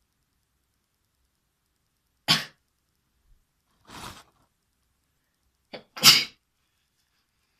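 A person sneezing twice, with sharp, short sneezes about two seconds in and about six seconds in. A softer breathy sound comes between them, and a quick catch of breath comes just before the second sneeze.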